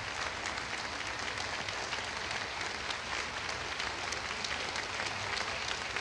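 Concert audience applauding steadily, a dense, even clatter of many hands clapping.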